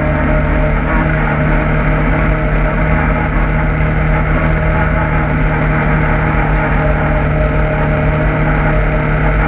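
Engine of a ridden off-road vehicle running at a steady pace, a constant hum of several steady tones under rough noise with no rise or fall in speed.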